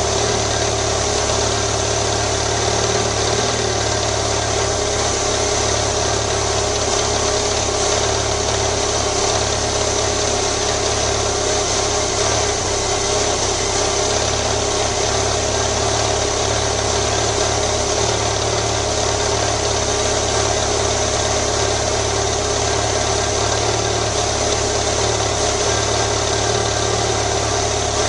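BMW motorcycle engine idling steadily.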